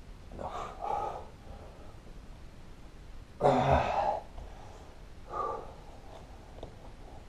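A man breathing hard from the exertion of push-ups: three heavy exhales, the loudest a forceful blow of breath about three and a half seconds in.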